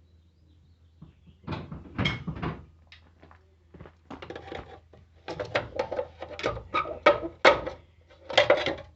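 Irregular clicks, knocks and clatter of hard objects being handled, starting about a second and a half in and growing denser near the end. No steady impact-wrench hammering.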